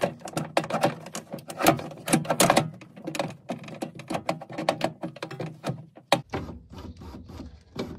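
Irregular clicks, taps and rattles of metal parts being handled inside a BMW E46 car door as a new window regulator and its motor are fitted. The clatter is dense for most of the stretch and thins out near the end.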